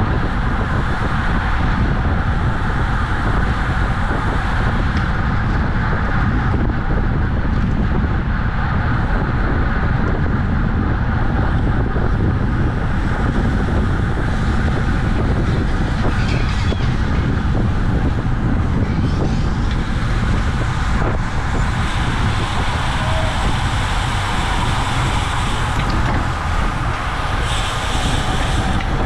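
Steady wind rush buffeting a camera microphone on a bicycle moving at race speed, with a heavy low rumble and road noise.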